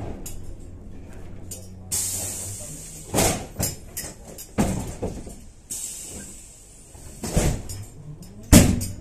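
Inside a Kyiv-12.03 trolleybus: a low steady hum that fades out early on, two spells of air hissing, and a series of loud knocks and rattles of the body, the loudest near the end.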